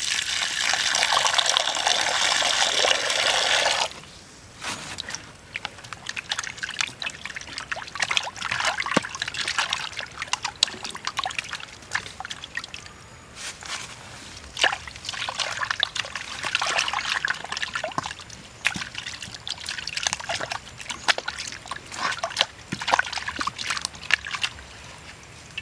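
Water poured in a steady stream into a metal pan holding a raw pig leg for about four seconds. Then hands rub and wash the leg in the water, making irregular splashing.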